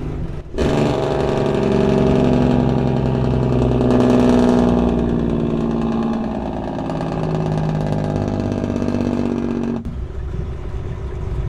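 A large engine running, heard from inside a semi-truck cab. It swells in about half a second in, its pitch shifts a little a few times, and it drops away abruptly near the end, leaving a lower rumble.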